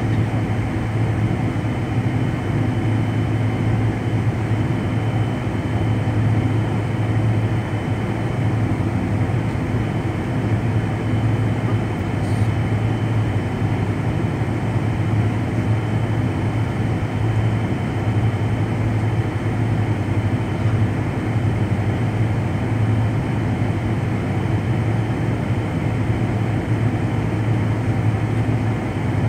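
Steady cabin noise of a jet airliner on the ground, heard from inside the cabin: idling jet engines and air-conditioning making an even, unchanging hum with a faint high whine.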